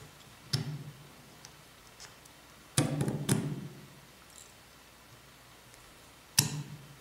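Handling noise of extruder parts as the spring-loaded lever is pressed onto the printed extruder body by hand: sharp clicks and knocks in three bouts, about half a second in, a longer cluster around three seconds in, and once more near the end.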